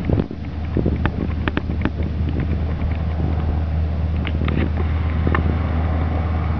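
A steady low rumble, with scattered faint clicks and ticks over it.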